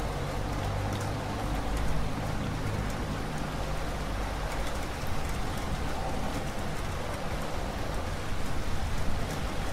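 Steady rain falling, with a low rumble in the first few seconds.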